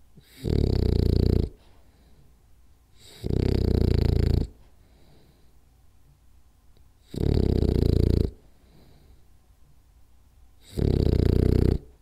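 French bulldog snoring in its sleep: four loud snores, each about a second long, coming roughly every three to four seconds with quiet breathing between.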